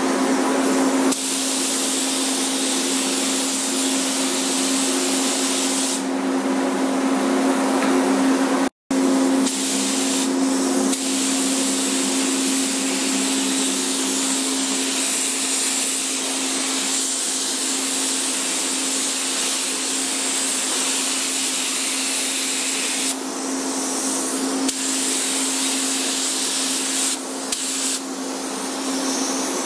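Compressed-air gravity-feed spray gun hissing as it sprays paint, over a steady hum.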